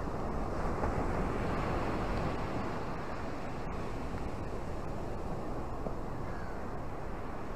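Ocean surf breaking on rocks and washing up a sandy beach, a steady rushing that swells louder for a couple of seconds early on as a wave breaks.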